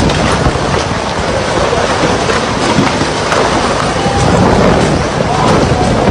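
Typhoon wind and heavy rain: a loud, steady rush of noise, with wind rumbling on the microphone.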